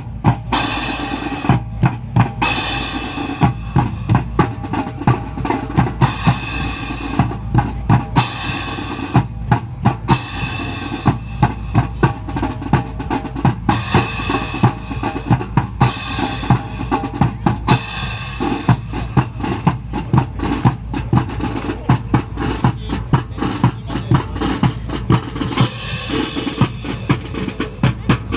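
Marching drum cadence: snare and bass drums beating a steady, fast rhythm with rolls, keeping time for a drill team.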